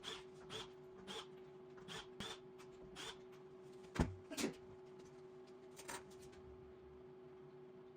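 A series of light clicks and knocks, about two a second, with two louder knocks about halfway through, over a steady faint hum. The clicks stop about six seconds in, leaving only the hum.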